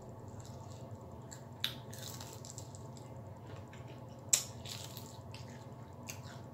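Crispy fried chicken wing batter crunching as it is bitten and chewed close to the microphone, with scattered small crackles and two sharper crunches, the louder one about four seconds in.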